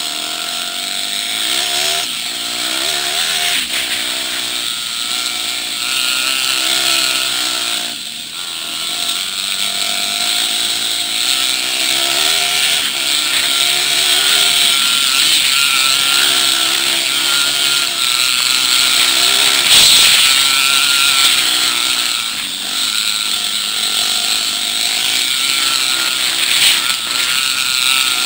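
Dirt bike engines running on a trail ride, the revs rising and falling continually, over a steady hiss.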